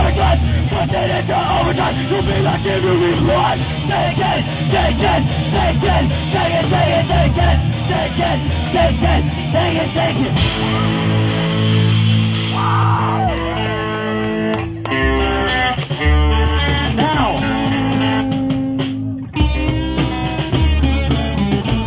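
Live punk rock band playing: distorted electric guitars, bass and drums, with shouted vocals over the first half. About halfway through, the drums and vocals drop back to held guitar and bass chords, and the band breaks off for an instant twice.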